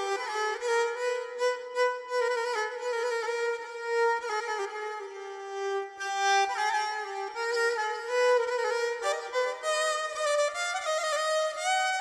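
Instrumental background music with a violin playing the melody.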